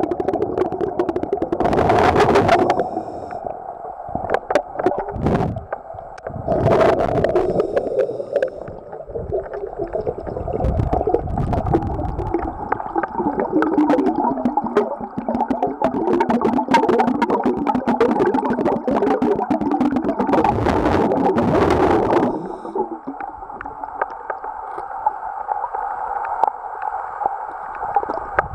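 Muffled underwater water noise in a swimming pool: a steady hum with gurgling and swishing, and louder rushes of water about two, seven and twenty seconds in.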